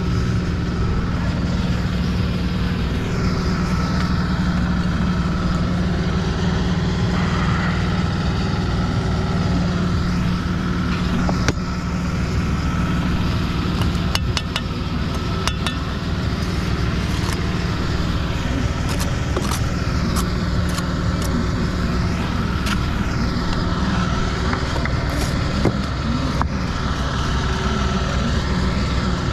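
An engine running steadily close by, with a continuous low drone and a few scattered sharp clicks and knocks over it.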